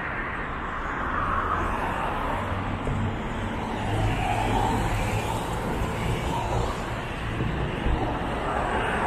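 Road traffic on a city street: cars driving past with engine and tyre noise that swells and fades a few times over a steady low rumble.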